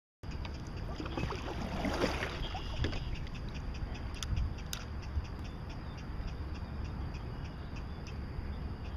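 Kayak paddle dipping and splashing, with water lapping around the hull and a low wind rumble on the microphone; the splashing is strongest about a second or two in, with a few sharp knocks later.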